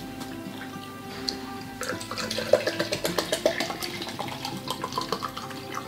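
Water glugging out of a plastic water bottle tipped on its side, in quick gulps from about two seconds in, over background music.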